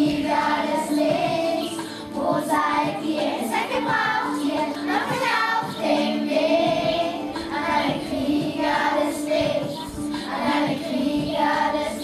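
A group of children singing a song together, without a break.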